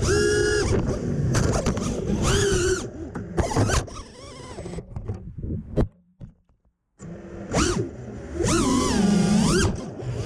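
FPV quadcopter's brushless motors whining, the pitch swooping up and down sharply with throttle. Near the middle the sound drops out for about a second, then the motors come back in.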